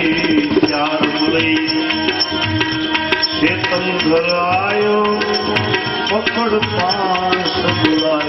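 Instrumental interlude of a Gujarati devotional bhajan: tabla keeping a steady rhythm under a melodic instrument playing the tune over a held drone note.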